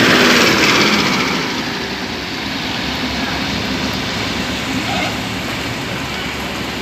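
A large bus's diesel engine running close by, a steady rumble with voices over it.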